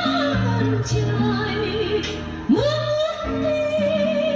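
A woman singing a Vietnamese song with band accompaniment, played back from a cassette tape. About two and a half seconds in she slides up to a long held note with vibrato.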